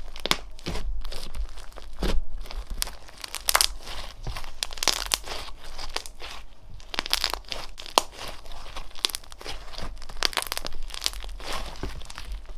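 Slime being squeezed and stretched by hand, giving dense, irregular crackles and pops.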